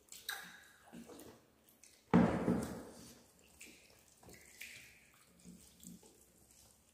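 Mealtime sounds of hand-eating rice and fish curry from steel plates, with a child drinking water from a steel tumbler. A sudden louder sound about two seconds in tails off over about a second, with small scattered sounds around it.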